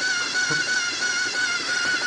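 Steady, slightly wavering high-pitched whine of the robotic chessboard's electric motor as it drives a captured piece toward the side columns.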